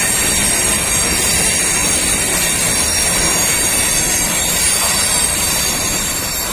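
Freight train of rail tank cars rolling past close by: a continuous rumble and clatter of steel wheels on the rails, with a steady high-pitched squeal of the wheels over it. The sound eases slightly near the end.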